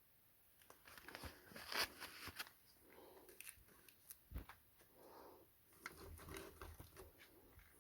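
Faint handling noise: irregular rustling, crinkling and small clicks of packaging and firecrackers being handled and unwrapped, starting about a second in.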